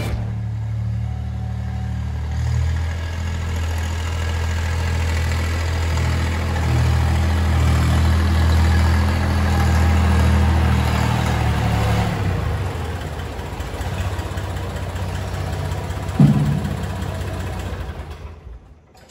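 Compact farm tractor's engine running steadily as it drives up with a loaded front-end loader, loudest about halfway through and easing off after that. A single sharp thump comes near the end, then the engine dies away.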